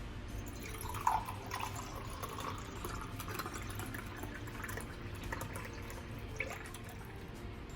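Water running and splashing, with a few drips.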